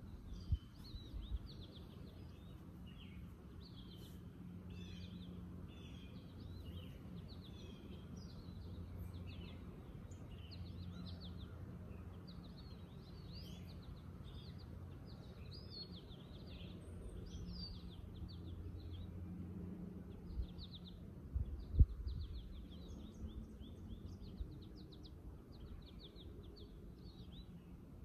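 Several songbirds chirping and trilling over a steady low rumble of outdoor background noise. One sharp knock about three-quarters of the way through.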